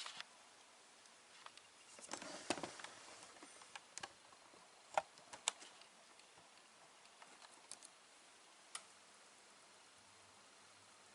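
Faint, scattered light clicks and knocks of objects being handled: a short cluster about two seconds in, two sharper clicks around five seconds, and a few more isolated ticks later.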